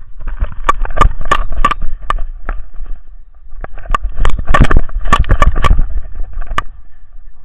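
Rapid knocks and rattles of a camera strapped to a running dog, jolted with each stride through snow, in two bursts with a short lull about three seconds in.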